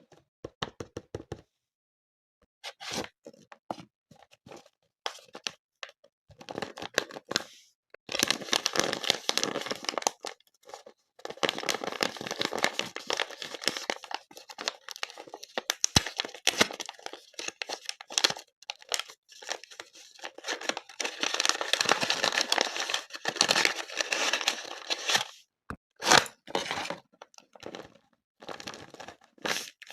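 A sealed plastic blind-box wrapper being torn open and its packaging crinkled by hand: bursts of sharp crackling and rustling, with short pauses between them.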